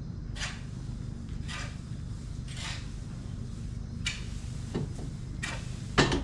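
Hay being pushed along a feed alley: short scraping swishes every second or so, with a louder knock near the end, over a steady low machine hum.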